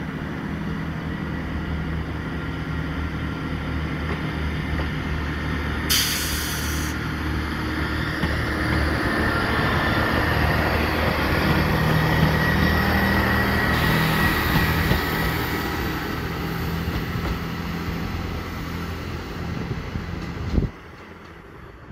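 Northern Class 158 diesel multiple unit running past on its underfloor diesel engines: a steady engine drone that builds as the train draws level and eases as it pulls away. A short hiss comes about six seconds in, and a thin high squeal rises over the drone in the middle. The sound cuts off sharply near the end.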